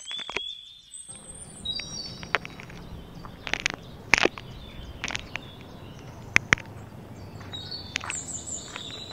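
Small birds chirping over a steady background of outdoor noise, cut by several sharp clicks and knocks from handling. The loudest click comes about four seconds in and two more close together around six and a half seconds.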